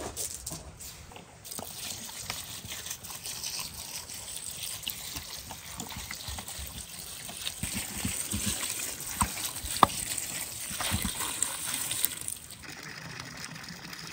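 Pickling liquid poured in a stream from a plastic jug onto shredded cabbage, beet and carrot in a plastic bowl, splashing and trickling through the vegetables with a few light knocks. Near the end this gives way to a quieter, steady stream of water splashing into a pond.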